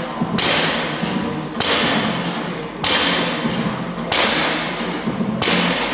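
Repeated workout strokes: five sudden thuds, each followed by a hiss that fades over about a second, coming evenly about every 1.3 seconds.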